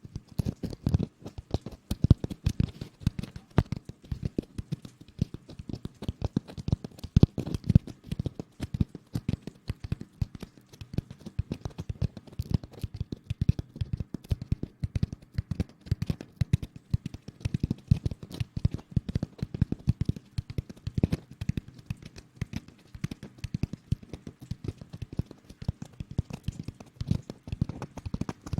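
Close-miked ASMR rustling: a dense, steady stream of rapid, irregular crackles and scratches, like hands rubbing and scratching right at the microphone.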